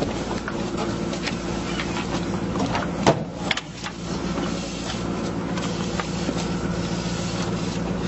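Small fishing boat's engine and deck machinery running with a steady hum while a crab pot line is hauled, with scattered clicks and a sharp knock about three seconds in.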